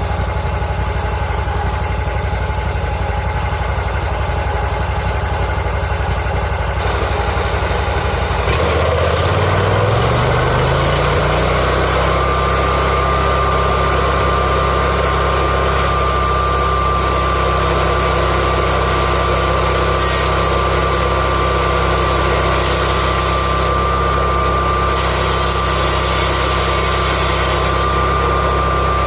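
MechMaxx 36-inch band saw mill's gasoline engine idling, then revving up about eight seconds in and holding steady at speed as the band saw cuts through a log, with a steady high whine over the engine.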